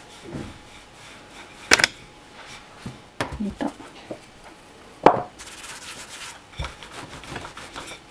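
Wooden rolling pin rolling out soft bread dough on a floured countertop, a low rubbing sound broken by a few sharp wooden knocks; the loudest knocks come about two and five seconds in.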